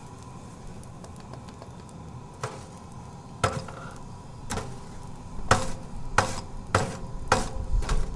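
Sharp knocks of hand tools striking on a road repair, starting about two and a half seconds in and coming faster and louder, roughly twice a second near the end, over a steady machine hum.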